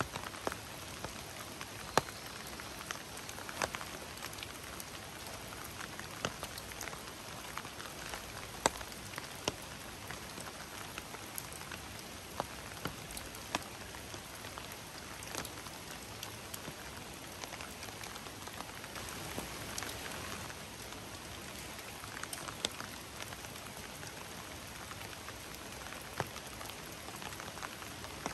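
Heavy downpour: a steady hiss of rain, with many sharp individual drops striking close by.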